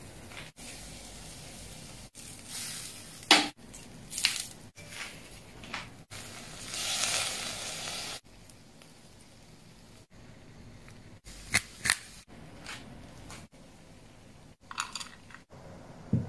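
Short cooking clips spliced together, with sharp clicks and crunches of food and utensils being handled. Near the middle, squid sizzles on a charcoal grill grate for about two seconds.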